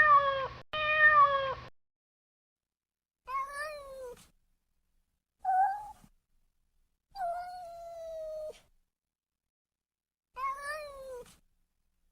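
Domestic cat meowing: six separate meows, several falling in pitch, with a longer drawn-out meow near the middle.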